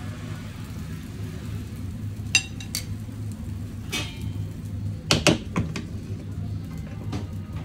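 Stainless steel tongs clinking against a metal pan and a ceramic plate while spaghetti is served, with several sharp clinks, the loudest pair about five seconds in. A steady low hum runs underneath.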